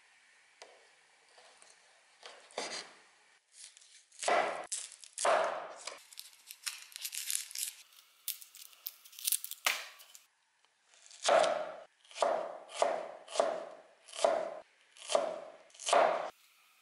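Small hand-forged axe slicing through dried sausage and onion on a wooden cutting board: a few separate cuts, then a stretch of crackly rustling as dry onion skin is peeled off, then a run of about seven evenly spaced chops through the onion, each blade stroke ending on the board.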